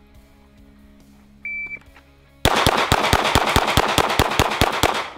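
A shot timer gives one short beep, and about a second later a Glock 19 9 mm pistol fires a fast, even string of twelve shots, each about a fifth of a second apart.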